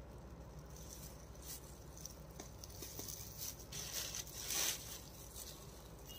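Faint soft rustles and light taps, a few of them scattered, the strongest about four and a half seconds in, over a low steady hum: a spoonful of ground turmeric being added to a steel mixing bowl.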